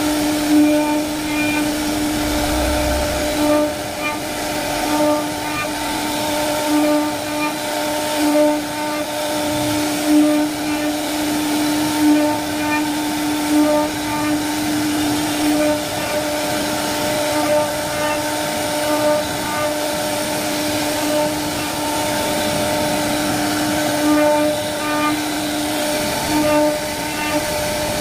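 CNC wood carving router running steadily, its spindle giving a constant whine over the hiss of the bit cutting flutes into wood.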